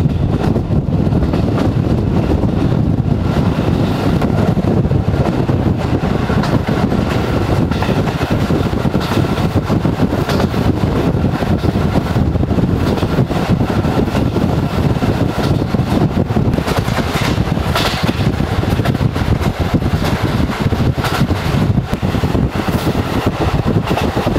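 Diesel railcar train running at speed: a loud, steady rumbling running noise.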